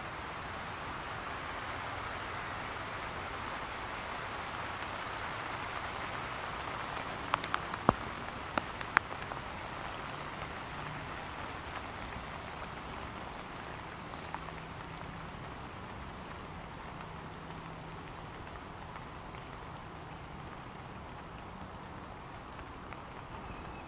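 Water shaken by the wind from wet tree leaves, pattering down like steady rain onto a canvas patio umbrella and the lawn. A few sharp taps come about eight seconds in, and the patter slowly eases off in the second half.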